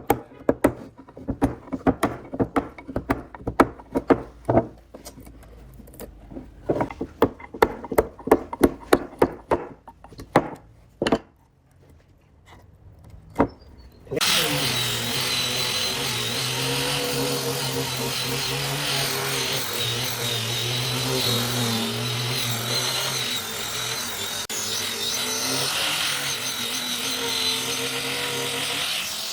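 Irregular sharp knocks on wood, several a second, then a power tool starts about halfway through and runs steadily at an even pitch.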